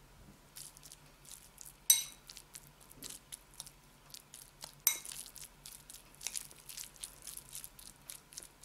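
A metal spoon stirring a mash of grated Jerusalem artichoke and almond oil in a glass bowl: a run of soft scrapes and ticks, with the spoon clinking sharply against the glass twice, about two and five seconds in.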